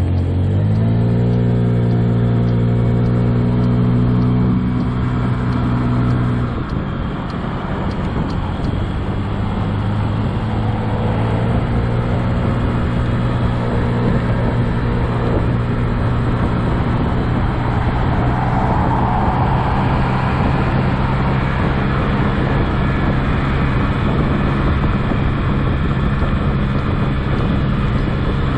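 A 2007 Honda Ruckus's 49cc four-stroke single-cylinder scooter engine rising in pitch as it accelerates and holding there. The throttle eases off about six seconds in, and the engine runs on at a lower, steady speed with wind and road noise.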